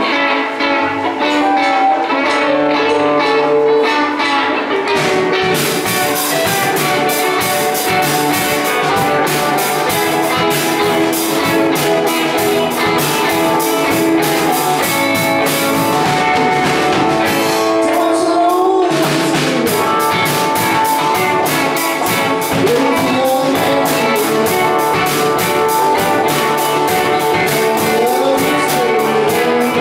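A live rock band playing: electric guitars over a drum kit, with the drums and cymbals joining about five seconds in.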